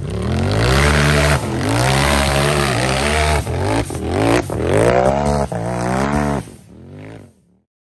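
UTV hill-climb buggy's engine revving hard in repeated surges, the pitch climbing and falling about four times, with a few sharp knocks among them. The sound ends abruptly shortly before the end.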